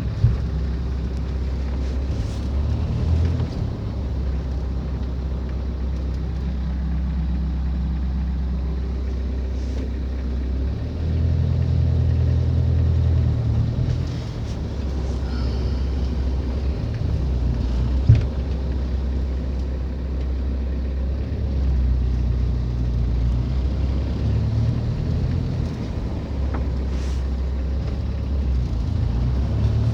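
Mitsubishi L300 Delica 4x4 engine and manual-transmission drivetrain running, a steady low drone that steps up and down in pitch and loudness several times. Two short sharp knocks sound, one right at the start and one about 18 seconds in. The running is the weird noise the owner questions in the manual transmission.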